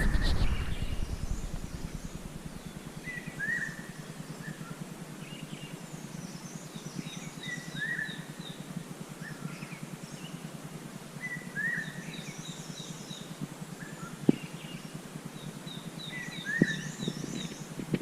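A songbird singing the same short phrase about every four seconds: a slurred note, then a quick run of about six short higher notes. Under it runs a steady low hum, and there are two sharp clicks near the end.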